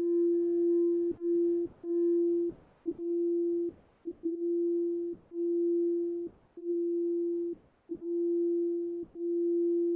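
Crystal singing bowl sustaining one steady ringing tone, heard through a video call, the tone cutting out for moments about once a second.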